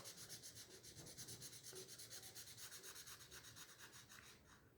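Felt-tip marker rubbing on paper in quick, even back-and-forth coloring strokes, faint, stopping shortly before the end.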